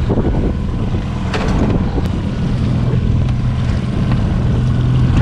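Boat motor running steadily under a low hum, with wind buffeting the microphone and a couple of light knocks about a second and a half in.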